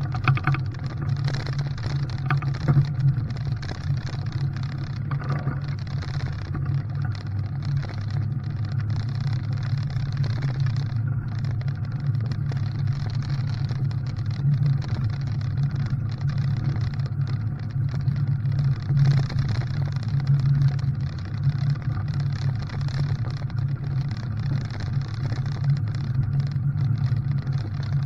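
Steady low drone of a moving vehicle, engine and road noise running on without a break.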